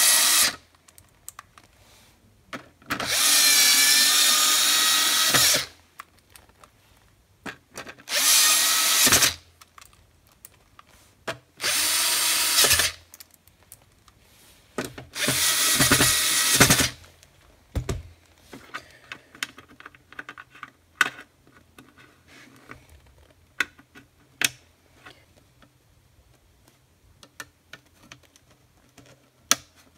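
Dremel cordless electric screwdriver driving in screws: five short runs of its motor whine, each one to two and a half seconds long, over the first seventeen seconds or so. After that come scattered light clicks and knocks.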